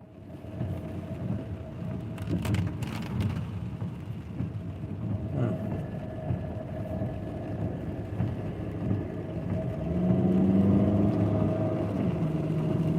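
Car driving, heard from inside the cabin: steady engine and road rumble with a constant thin whine, a few clicks a couple of seconds in, and the engine growing louder about ten seconds in.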